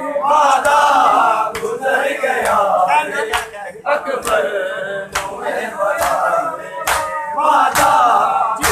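A crowd of men chanting a noha (Shia mourning lament) together, with sharp slaps of hands striking bare chests (matam) in a steady beat about once a second.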